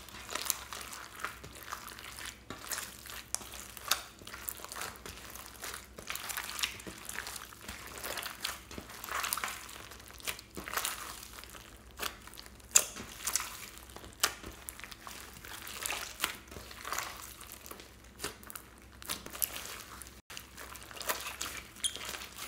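Hands kneading, stretching and squeezing a large mass of glossy slime: wet squishing with dense, irregular small pops and crackles.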